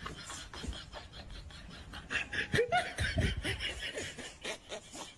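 People laughing in short, broken bursts, loudest from about two seconds in to about three and a half seconds in.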